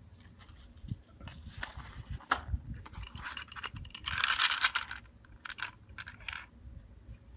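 Clicks and scrapes of a polymer 9 mm Glock drum magazine and a plastic tray of cartridges being handled and set down on paper. The clicks come scattered, with a longer, louder scrape about four seconds in.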